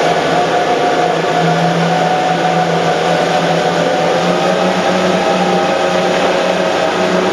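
Engines of a 900 hp rigid inflatable boat running at high speed, a steady drone, over the constant rush of the churning wake and wind.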